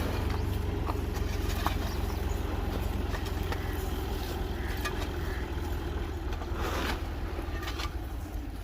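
Tractor engine running steadily, a low rumble with a steady hum above it, with a brief louder rush of noise about seven seconds in.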